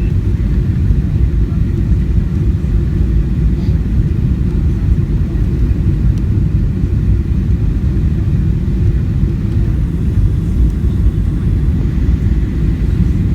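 Steady low rumble inside the cabin of a Boeing 737-700, from airflow and its CFM56-7B engines on approach, with the flaps probably fully extended.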